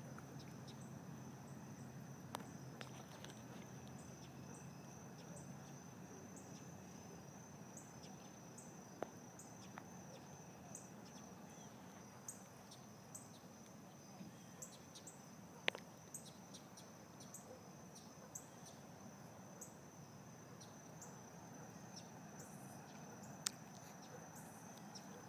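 Faint insect chorus, a steady high-pitched trill with short repeated chirps over it, broken by a few sharp clicks.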